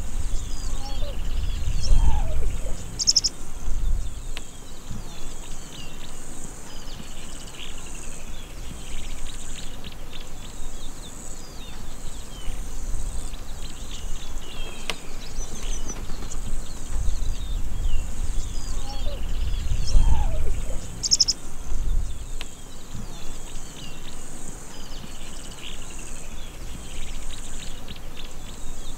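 Daytime African savanna ambience: many birds chirping over a steady high insect buzz, with a couple of brief low rumbles.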